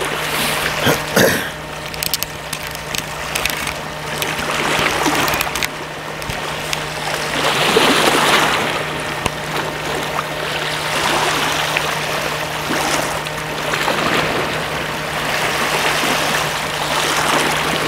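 Sea water washing and trickling over shoreline rocks, swelling and ebbing every few seconds, with a few sharp clicks in the first second or two and a faint steady hum underneath.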